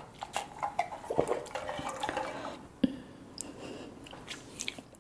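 Eating sounds: utensils clicking and scraping against dishes in irregular taps, with one sharp knock just under three seconds in.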